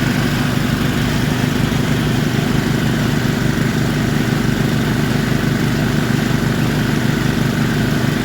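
Engine of a borewell drilling machine running steadily.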